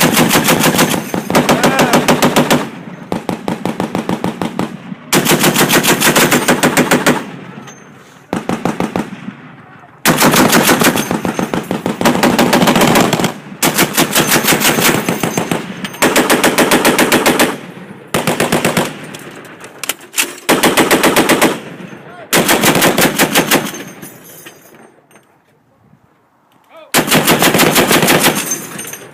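M2 .50-calibre heavy machine guns firing a steady run of bursts of one to three seconds each, with an even cadence of single heavy shots. The bursts alternate, some slightly quieter than others: the 'talking gun' method of sustained fire, with guns trading bursts. There is a lull of a few seconds before one last burst near the end.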